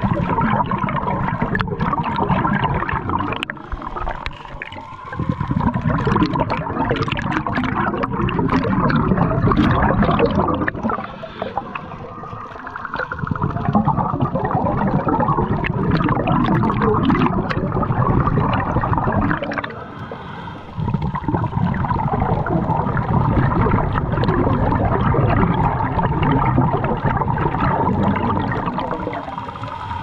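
Muffled underwater rushing and bubbling picked up by a camera in a waterproof housing, with a steady faint hum and short lulls roughly every seven to eight seconds.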